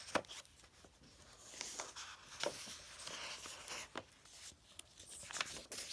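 Pages of a paperback picture book being turned by hand: soft paper rustling with a few light flicks and taps.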